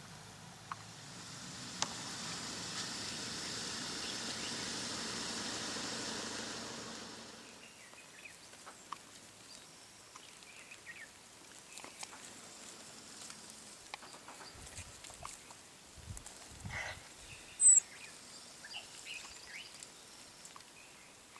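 A vehicle engine swells in and fades out over the first seven or so seconds, with a steady low hum under a broad hiss. Then come quiet outdoor surroundings with scattered faint chirps and ticks, a few low thumps, and one sharp loud click a few seconds before the end.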